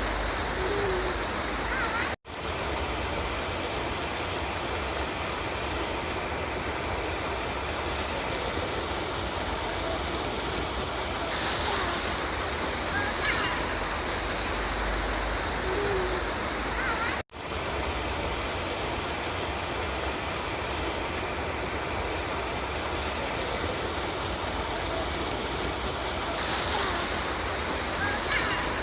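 River water rushing in a steady, even wash. The sound cuts out completely for a split second twice, about 2 seconds in and again about 17 seconds in.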